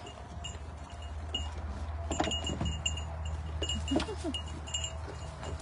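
Wind chimes tinkling on and off, with two short animal calls, likely goats, about two and four seconds in, over a steady low hum.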